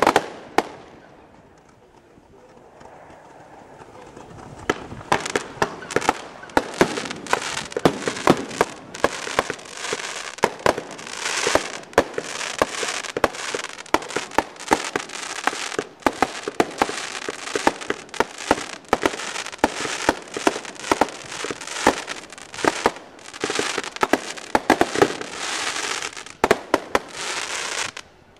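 Fireworks display: a few sharp bangs, a brief lull, then a dense barrage of shell bursts and reports, several a second, that stops abruptly near the end.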